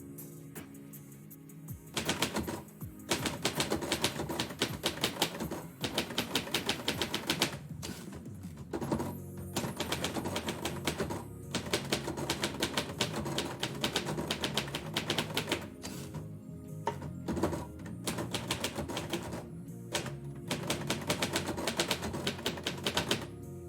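Typewriter keys struck in quick runs of several seconds, broken by short pauses, with background music playing underneath.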